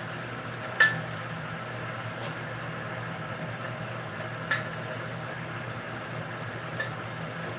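A utensil clinking against a metal cooking pot on the stove, three short sharp clinks with the loudest about a second in, over a steady low hum.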